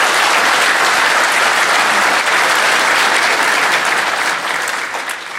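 Audience applauding, a steady wash of many hands clapping that starts to taper off near the end.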